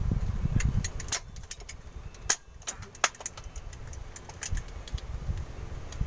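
Scattered sharp clicks and light knocks of hand tools and fuel-filter parts being handled, with a low rumble in the first second.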